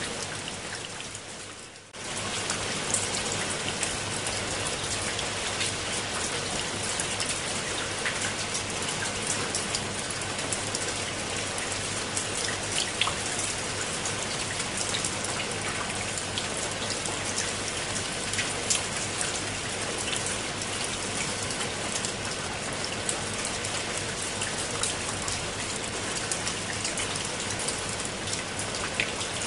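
Steady rain falling on stone steps and leaves, a dense hiss with many sharp drop ticks. The sound fades down over the first two seconds, then comes back abruptly.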